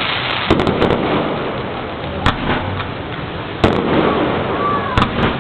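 Fireworks going off: four sharp bangs about a second and a half apart over a continuous crackle, with a short whistle just before the last bang.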